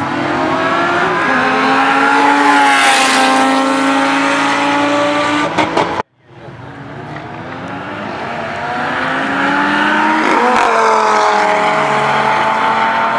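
Cars running flat out down a drag strip in a roll race, engines climbing in pitch as they approach and dropping as they go past. About halfway through the sound cuts off suddenly, then a second pass builds and its engine note falls away as the cars go by.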